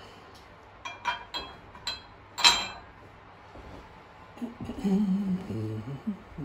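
A few light metallic clicks, then one louder clink that rings briefly about two and a half seconds in, from a red pump oil can being worked and handled over an aluminium cam cover. Near the end a man hums briefly.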